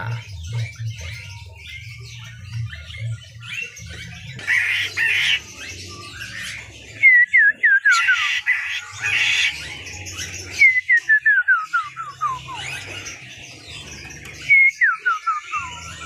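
Caged black-throated laughingthrush whistling: three runs of loud, short notes that each slide downward, each run stepping lower in pitch. Harsh chattering bursts come between the runs.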